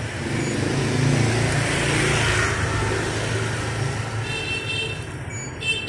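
A motor vehicle passing on the street, its engine and road noise swelling about a second in and then fading away.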